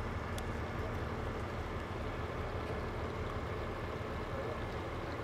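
A tow truck's engine running steadily with a low rumble, powering the winch that drags the flooded truck up the ramp on its cable.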